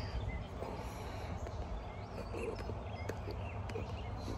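Outdoor ambience: a bird chirping now and then over a steady low rumble, with a few faint clicks.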